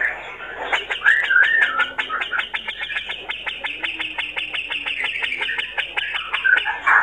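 Male grey-cheeked bulbul (cucak jenggot) singing: a warbling phrase about a second in and short sharp notes near the end, over a fast steady ticking of about ten strokes a second.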